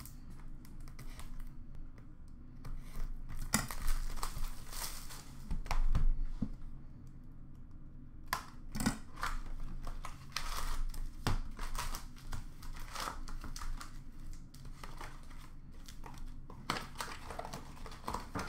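Plastic shrink-wrap being torn and peeled off a sealed box of hockey cards, crinkling and crackling in irregular rips and rustles.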